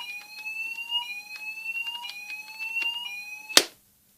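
Fire alarm sounders set off by a manual call point test, giving a repeating rising tone that sweeps up over about a second and starts again. About three and a half seconds in there is a loud click and the alarm cuts off.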